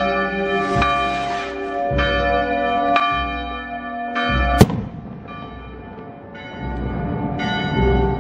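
Church bells ringing from the tower: repeated strikes whose long-ringing tones overlap one another. A single sharp crack about halfway through is the loudest sound.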